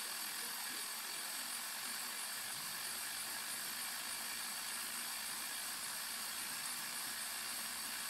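Steady hiss of steam from a Kamenstein locomotive-shaped tea kettle on a gas burner, the steam jet blowing against the louvers of the rear wheel to spin it.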